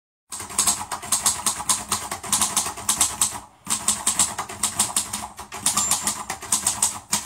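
Rapid, even clicking, about five clicks a second, in three runs with short breaks between them, like fast typing.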